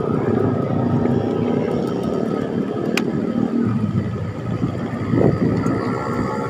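Motor vehicle engines in road traffic drone steadily, with wind rushing over the microphone of a moving bicycle. A single sharp click comes about three seconds in.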